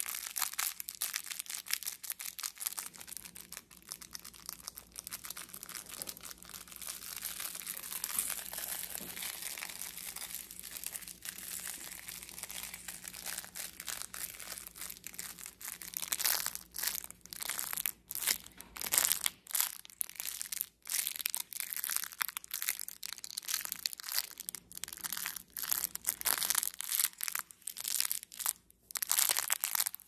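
Plush bat baby rattle squeezed and scrunched in the fingers close to the microphone, giving a dense crackling. About halfway through it turns into separate louder squeezes with short pauses between them.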